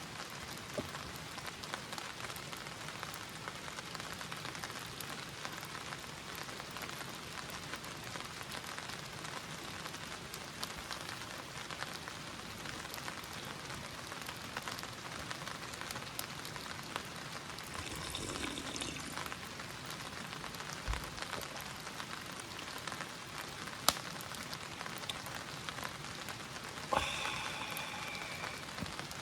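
Steady rain falling, with a dense patter of individual drops. A single sharp tap stands out about three-quarters of the way through, and a brief pitched sound follows near the end.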